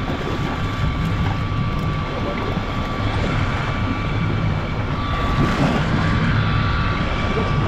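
Sportfishing boat's engines running steadily: a low, even hum with a thin, steady high whine over it and a hiss of wind and water.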